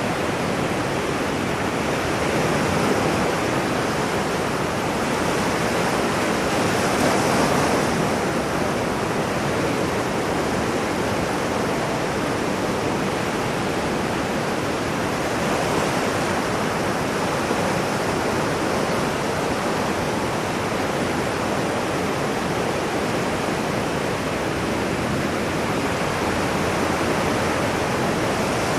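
Ocean waves breaking and washing on a shore in a steady, dense rush, swelling gently about three seconds in and again around seven to eight seconds.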